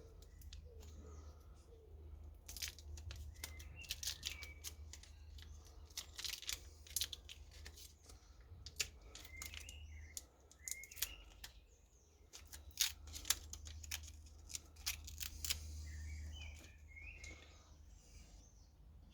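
Irregular sharp clicks and scrapes of hand tools working a punctured motorcycle tyre with a tyre plug kit, with small birds chirping now and then and a low steady hum underneath.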